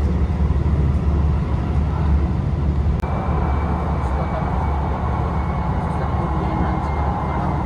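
Inside a Hankyu 2300 series electric train running: a steady low rumble from the wheels and track. About three seconds in there is a click, and a thin high whine joins in, drifting slightly lower in pitch.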